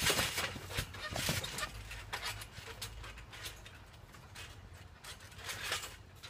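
People bouncing on a backyard trampoline: irregular thumps of feet landing on the mat. The thumps are loudest in the first second and a half, quieter in the middle, and pick up again near the end.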